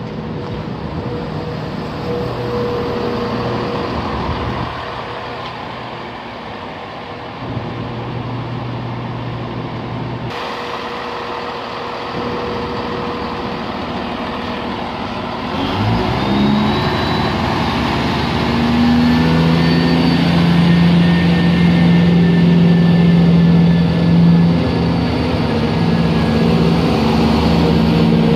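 Class 170 Turbostar diesel multiple unit with its underfloor diesel engines idling at the platform; a little over halfway through the engines rev up with a rising note and settle into a louder, steady drone as the train powers away.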